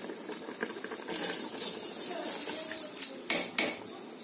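Jeeraga samba rice poured from a metal strainer into a large aluminium pot of boiling spiced water, a hissing pour through the middle, then two metal clinks against the pot about three seconds in, over the steady bubbling of the boil.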